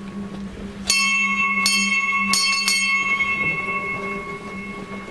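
A bell struck four times at uneven intervals, starting about a second in, each stroke ringing on with a clear high tone that slowly fades.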